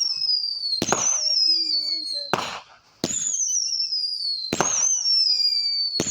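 Consumer fireworks going off in a regular series: a sharp pop or bang about every one and a half seconds, each followed by a high whistle falling steadily in pitch.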